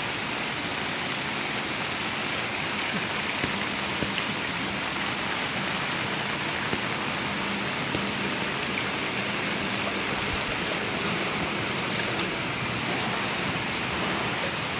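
Rain falling steadily onto standing floodwater, a continuous even hiss of drops striking the water surface.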